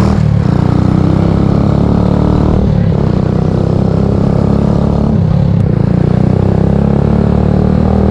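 Honda CGL125's single-cylinder four-stroke engine running as the motorcycle rides along at low street speed. The note dips briefly twice, about a third and two-thirds of the way through.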